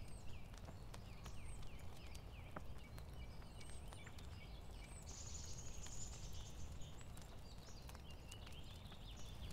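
Birds calling: a quick series of short, curved chirping notes, a higher fast trill from about five seconds in, and more chirps near the end, over a steady low rumble.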